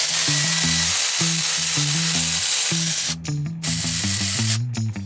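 Background music: a bass line stepping between notes under a dense, hissing top layer that drops out briefly about three seconds in.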